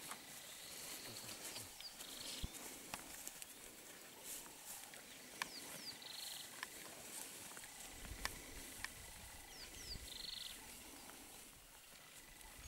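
Footsteps through dry grass and sandy ground, with a bird repeating a short phrase of quick descending chirps and a buzzy note about every four seconds.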